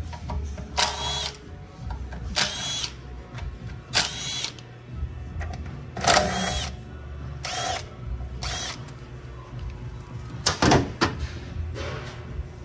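Handheld power driver spinning bolts out of a 6L80 transmission's oil pan in short bursts, about seven in all, each with a brief rising and falling whine.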